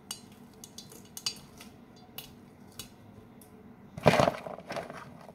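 Scattered light clinks and taps against mixing bowls while salad is being put in and stirred, with a louder scraping clatter about four seconds in.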